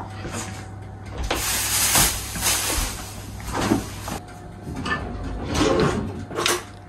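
Kitchen handling noises: a series of knocks and rustles from people moving about and handling doors and things, over a steady low hum.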